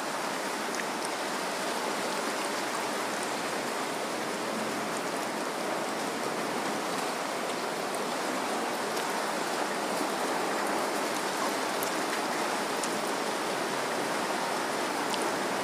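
Steady rain falling: an even, dense hiss that holds at the same level throughout.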